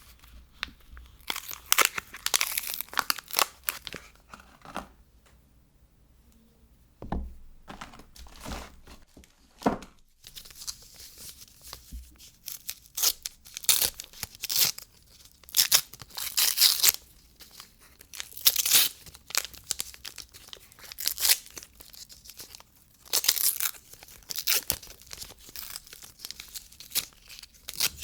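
Soap wrapping being torn open and crinkled by hand, in repeated crackly bursts, with a short lull a few seconds in and denser tearing and crumpling after that.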